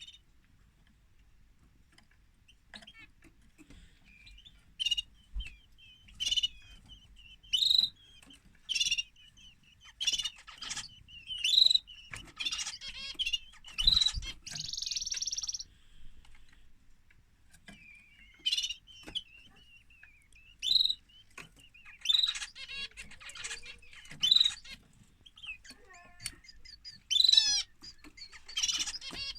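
Domestic canary singing: a few seconds of quiet, then a run of sharp chirps and warbled phrases, with a short buzzy trill about midway and a brief pause before the song resumes.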